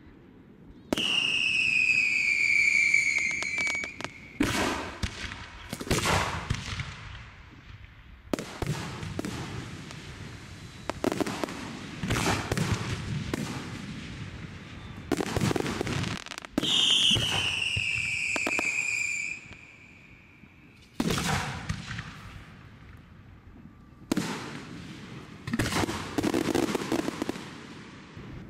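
Aerial fireworks display: repeated shell bursts and crackling. Two long falling whistles come from whistling fireworks, one about a second in and one around the middle.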